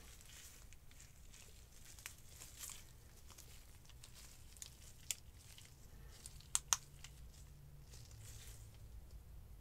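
Faint handling noise from nitrile-gloved hands bending and coiling a USB fan's flexible metal gooseneck: soft rustling with a few sharp clicks, the loudest a quick pair about two-thirds of the way through.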